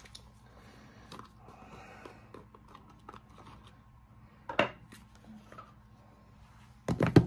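Trading card pack and its packaging being handled and opened: soft rustling, a sharp click about four and a half seconds in, and a quick run of loud clicks near the end.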